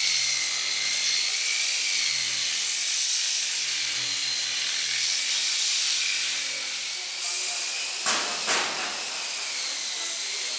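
Handheld orbital sander running steadily against a primed steel bus panel: a constant whine over a loud hiss. About seven seconds in the sound changes, and two short hissing bursts follow from a spray gun being triggered.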